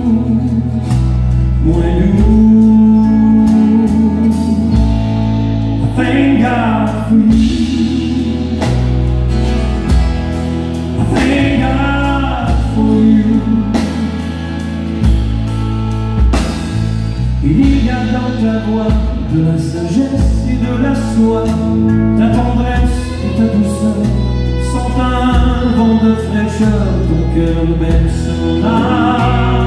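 Live country band playing a French-language love song: a man singing over acoustic guitar, electric guitars and drums.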